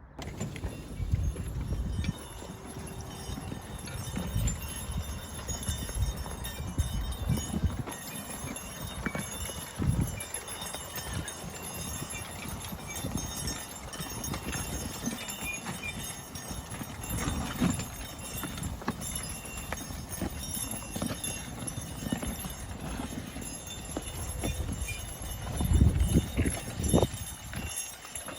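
Hoofbeats of a team of Belgian draft horses walking on a field: irregular heavy thuds with a loud cluster near the end.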